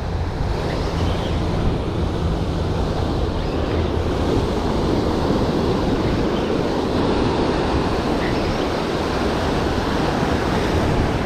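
Sea surf breaking and washing onto the beach, a steady rushing noise, with wind buffeting the microphone.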